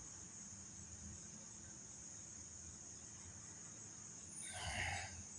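Crickets trilling steadily at a high pitch in the background, with a brief soft noise about four and a half seconds in.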